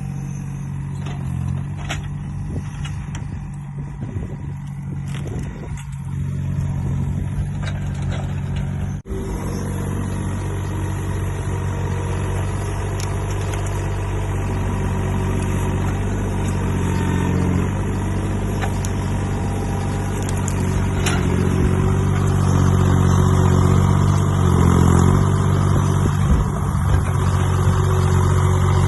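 Takeuchi TB125 mini excavator's diesel engine running steadily, growing louder at times in the second half, with scattered short knocks during the first several seconds.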